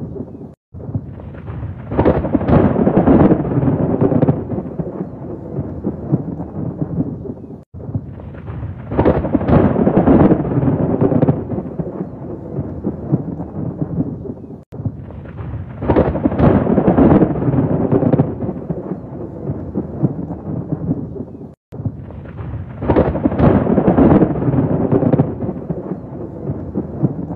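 Thunder rolling in long rumbles, one swelling peal about every seven seconds over a steady rain hiss. Each peal is cut off by a brief dropout before the next, as if the same stretch of storm audio were looped.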